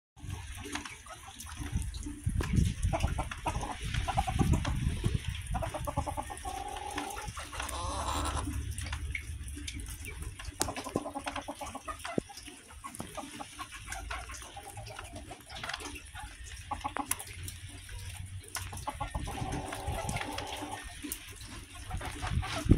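Backyard hens clucking and making short, drawn-out calls off and on as they feed, over a low rumble.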